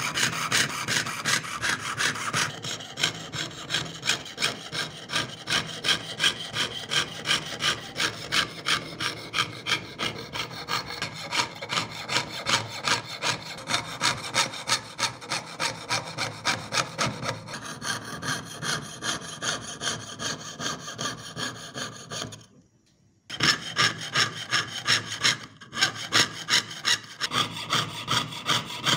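Jeweler's saw blade cutting through thin metal sheet in quick, even back-and-forth strokes, about two a second, while piercing out the background of an engraved design. The sawing stops briefly about three-quarters of the way through, then resumes.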